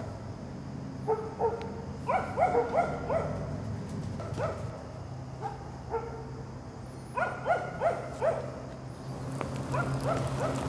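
Dogs barking in four bursts of several quick barks each, with pauses of a few seconds between bursts.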